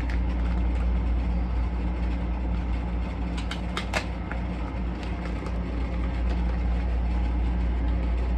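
A steady low hum with a few sharp crinkles and clicks about three and a half to four seconds in, from a taped plastic record bag being worked open by hand.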